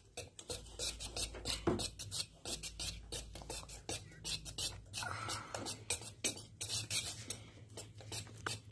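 Wire whisk beating runny cake batter in a stainless steel bowl: rapid, irregular scraping and ticking of the wires against the metal.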